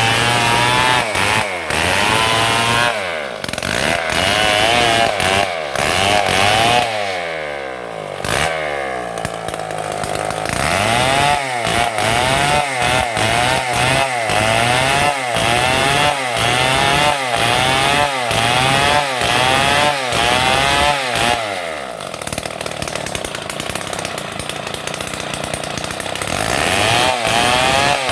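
Stihl MS 070 two-stroke chainsaw cutting through a palm trunk, its engine speed rising and falling about once a second as it works through the cut. Twice the engine sinks to a lower, slower note before picking back up.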